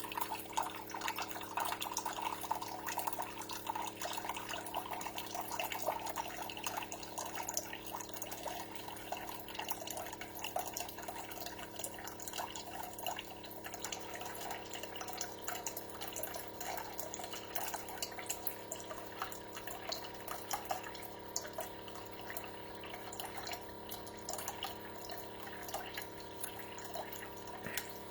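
Keurig K-Cafe single-serve coffee maker pouring a continuous stream of water into a cup, with a steady hum beneath the splashing. It is dispensing uncommanded on being switched on, a fault that runs the cup past its serving size and drains the whole tank.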